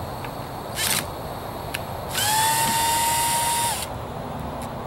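Inline cordless screwdriver motor running steadily for about a second and a half, backing out a screw that holds an old boat navigation light. A brief noise comes about a second in.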